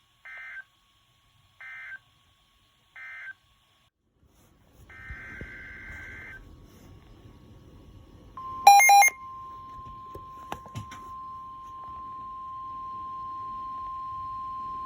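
Emergency Alert System data tones: three short bursts of warbling digital tones marking the end of a warning, then a longer burst of the same tones. About eight seconds in, a brief loud electronic beep, and a steady single-pitch weather alert tone starts and keeps sounding, announcing the next warning.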